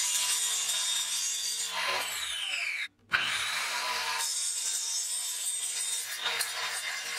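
Circular saw with a toothed blade, mounted as a chop saw, cutting through aluminium: a loud hissing screech over a steady whine. About two seconds in the whine falls in pitch as the blade winds down. After an abrupt break near three seconds it runs and cuts again.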